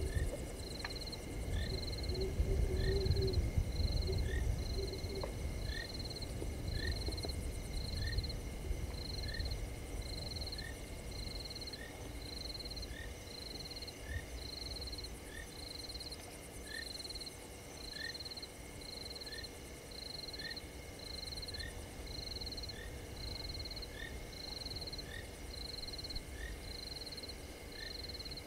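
Night chorus of frogs: a high-pitched call repeated steadily about once a second, with a shorter, falling chirp between the calls. A low rumbling noise fills the first few seconds and then fades.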